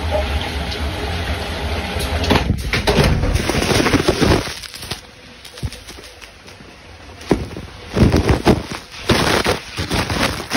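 A rider drops through the trapdoor of a capsule water slide and rushes down the enclosed tube. A steady noisy hum gives way to a quieter stretch, then loud, irregular rushing with sharp knocks in the last few seconds.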